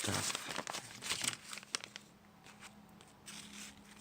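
Crinkling and rustling of a crinkly wrapper being handled, dense for the first second or so, then thinning to scattered crackles. A faint low hum sets in about halfway through.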